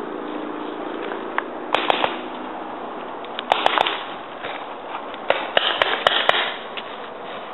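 Paintball markers firing: sharp pops in three quick bursts about a second and a half apart, the last and longest near the end.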